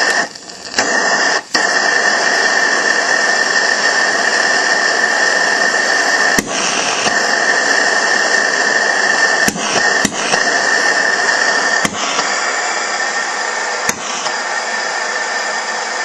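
Coleman 321B gas lantern burner running with a loud, steady hiss and a steady high whistle. It is excessively loud because the burner screen inside the burner cap is missing.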